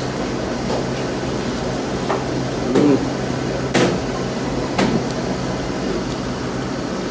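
Steady low hum of room noise, with four short knocks or clicks in the middle, the sharpest about four seconds in.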